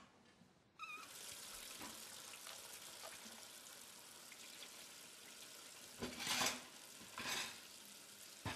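Kitchen tap coming on with a brief squeak and running steadily into a sink, with two louder bursts about six and seven seconds in.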